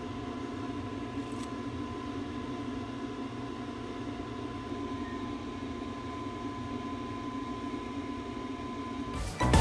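Steady mechanical hum, like a small motor or fan running, with a thin high whine over it. Louder music comes in near the end.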